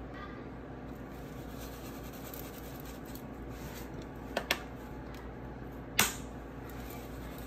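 Plastic clicks from a seasoning shaker's green flip cap being handled and opened: two quick light clicks about four and a half seconds in, then one sharper snap about six seconds in, over a steady low room hum.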